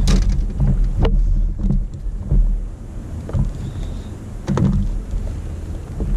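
Low rumbling background noise from wind and water on a microphone that has water in it, aboard a small inflatable boat. Several short knocks and bumps break through it as a freshly caught cod is handled in the boat.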